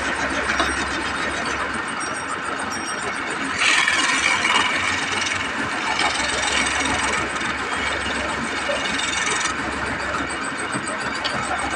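Wood lathe running while a narrow chisel cuts into the spinning wooden spindle: a steady scraping hiss that grows louder from about a third of the way in and eases back a few seconds before the end.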